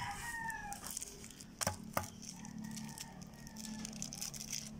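A rooster crowing twice, the second crow longer and fainter, with a couple of sharp clicks as plastic coin bags are handled.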